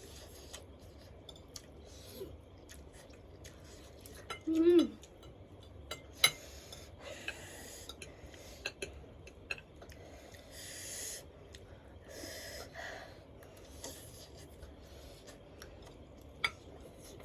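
People eating very spicy instant noodles: scattered clicks of utensils against bowls, and sharp hissing breaths drawn in against the chilli heat, the longest about ten seconds in. A short vocal murmur comes a few seconds in.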